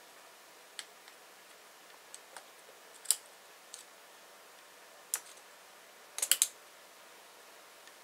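Sparse light clicks and taps of small tools and parts being handled on an RC crawler's axle with brass steering knuckles and C-hubs: single clicks about a second, three seconds and five seconds in, then a quick run of about four clicks a little after six seconds.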